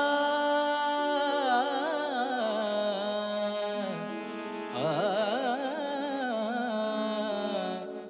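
Introduction to a Marathi devotional abhang: two long, ornamented melodic phrases over a steady drone, with a short break at about four seconds.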